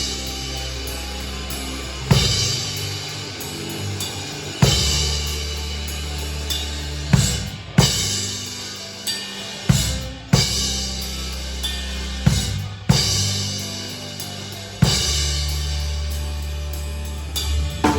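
Pearl Reference drum kit playing along to a slow song with held bass and keyboard tones: single kick and cymbal crash hits a couple of seconds apart, each ringing out. A quick drum fill of rapid tom and snare hits comes near the end.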